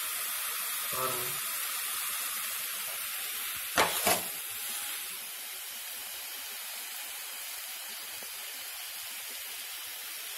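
Coconut-and-syrup mixture sizzling with a steady hiss in a metal kadai as it is stirred with a steel spoon near the end of cooking, with two sharp knocks of the spoon against the pan about four seconds in.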